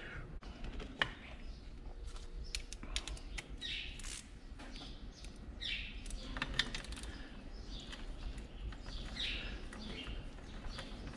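Scattered light clicks and taps of tools and plastic parts as the string trimmer's cover is worked on, with a bird giving several short falling chirps in the background.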